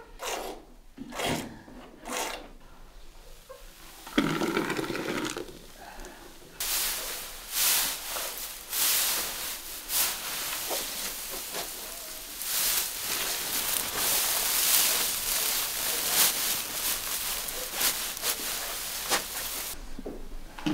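Milk squirting into a pail as a cow is milked by hand: separate spurts at first, then a dense, continuous hiss of streams from about six seconds in, with a brief louder sound about four seconds in.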